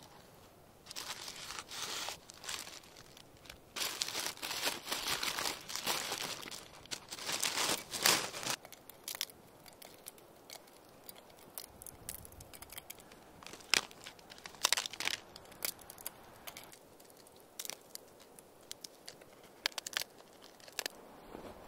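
Paper wrapping and beeswax foundation sheets crinkling and tearing as they are handled and broken up by hand. The first several seconds are the busiest; after that come sparser small clicks and rustles as pieces of wax are pressed into a small metal cup.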